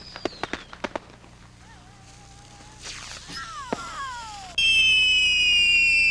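A lit firecracker string going off in a quick series of sharp pops that stop about a second in. Then come a few fainter falling whistles and a crack, and a loud, high, steady whistling tone that cuts in abruptly near the end.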